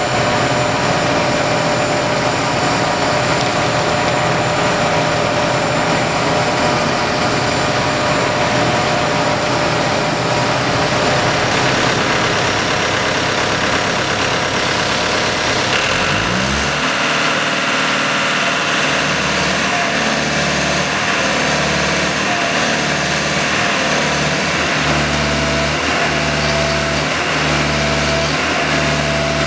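Concrete mixer truck's diesel engine running steadily, then revving up quickly about halfway through and holding at a higher speed with a regular pulse about once a second, as the drum is driven to discharge concrete down the chute.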